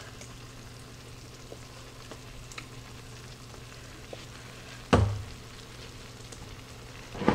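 Chicken sizzling softly in an Instant Pot's steel inner pot on the sauté setting, over a steady low hum. A single sharp knock sounds about five seconds in.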